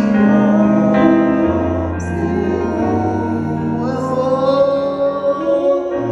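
Slow music with sustained chords and a singing voice holding long notes.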